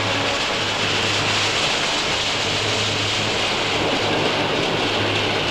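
Steam train running, a loud, steady rushing hiss with no clear beat.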